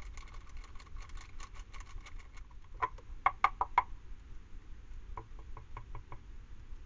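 Dry cat food pattering out of a foil pouch onto a slab in a quick run of light clicks. Then a plastic tray knocked against the slab as food is tipped out of it: five sharp knocks a little under halfway through, and a few lighter taps later.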